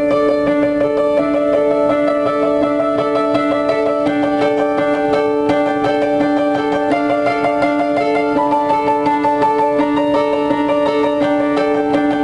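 Upright piano playing a solo New Age piece: quick, flowing runs of notes over held notes that ring throughout, at a steady loudness.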